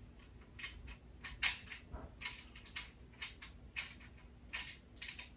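Short irregular scrapes and clicks of a screw being tightened into the metal frame of a garment rack, about a dozen of them, unevenly spaced.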